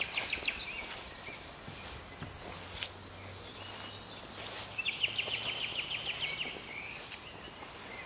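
Nightingale singing: a short burst of rapid repeated notes at the start, then about five seconds in a longer, even trill of about nine notes a second lasting over a second. A few faint clicks lie beneath.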